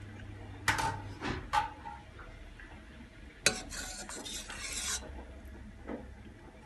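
A metal ladle clinks against a steel cooking pot three times, then strikes it hard and stirs through a thick bean stew with a wet scraping slosh for about a second and a half. One more light knock near the end.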